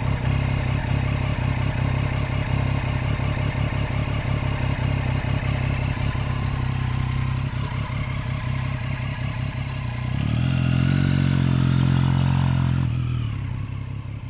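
Motorcycle engine running with a steady low-pitched note. It grows louder and steadier for about three seconds near the end, then starts to fade.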